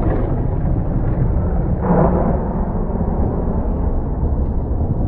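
Explosion of the crashed aircraft heard from a distance: a deep, steady rumble with a louder burst about two seconds in.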